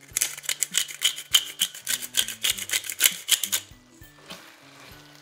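Rapid, irregular crackling and popping from a pan of thick, creamy chicken-and-vegetable filling cooking on the hob, loud for about three and a half seconds and then stopping abruptly. Background music plays throughout.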